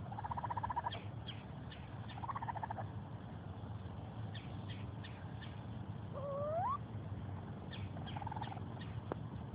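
Baby raccoons purring: three short bouts of rapid, pulsing churr, with one rising squeak about six seconds in.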